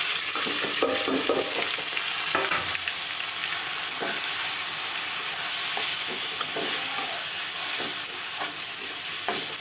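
Grated onion and tomato sizzling in hot oil in a kadai, freshly added so their moisture hisses off as steam. A spatula stirs them, with a few short scraping strokes against the pan.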